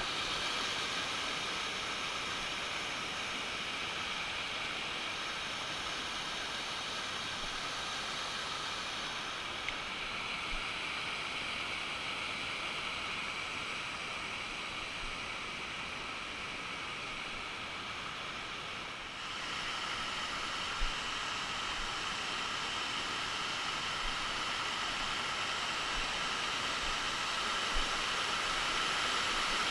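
Waterfall water rushing and splashing in a steady hiss. The sound changes abruptly about two-thirds of the way through, as the water is heard from a different spot.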